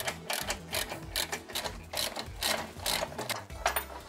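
Hand ratchet wrench clicking as it undoes screws, a quick, uneven run of clicks about four a second.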